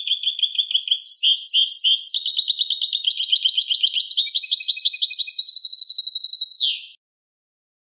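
European goldfinch singing its clean song (canto limpio): one long, fast twittering phrase of high notes. In the second half it becomes a rapid trill, and it ends with a falling note about seven seconds in.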